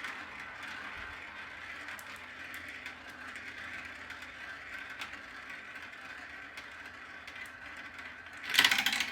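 Marbles rolling along a marble run track, a steady rolling sound with faint clicks. Near the end a much louder, dense clatter of many quick clicks starts.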